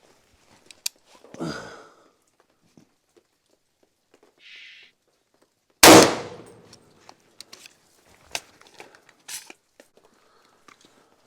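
A single .300 Blackout rifle shot firing a full metal jacket round, loud and sharp about six seconds in, with a ringing echo that dies away over about a second. A few lighter clicks and knocks come before and after it.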